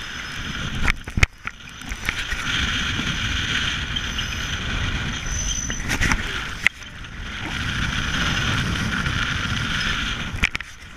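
Water rushing past a racing catamaran's hulls, with wind buffeting the microphone: a steady rush, broken by a few sharp knocks about a second in, around the middle and near the end.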